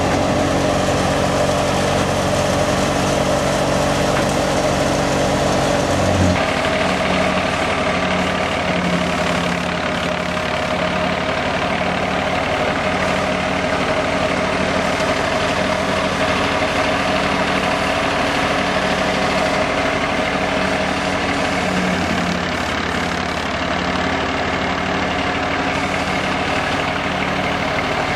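Massey Ferguson tractor engine running steadily while it powers a wheat thresher, the machine's drum whirring and hissing as wheat is fed in. The sound shifts in its low end about six seconds in.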